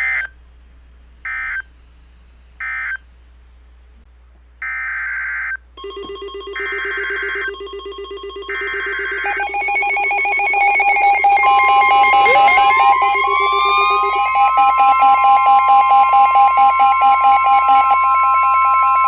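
NOAA Weather Radio alert signalling. Three short SAME data bursts mark the end of a tornado warning, then three longer data bursts carry the header of the next warning. From about six seconds in, several alert tones from more than one receiver overlap, with a siren-like rising sweep about halfway through.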